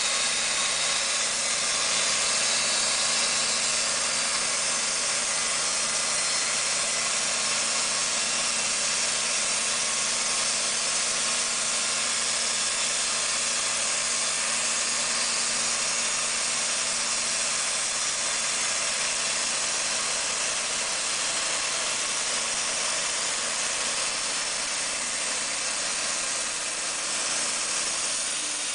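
Timber King portable band sawmill sawing through a black walnut log: the engine runs steadily under the hiss of the band blade in the cut as sawdust is thrown out.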